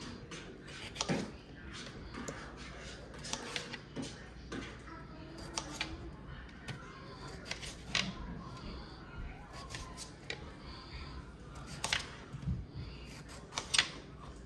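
Kitchen knife cutting unpeeled raw potatoes, with irregular short knocks and clicks of the blade about every second.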